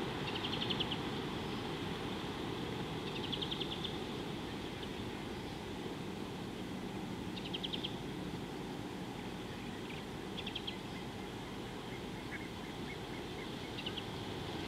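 A bird giving a short, rapid trill about every three to four seconds, five times, over a steady low rumble of wind noise.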